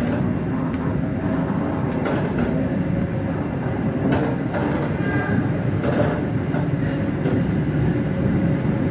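Stainless-steel KAI passenger coaches passing close by: a loud, steady rumble of steel wheels on the rails, with sharp clacks as the wheels cross rail joints.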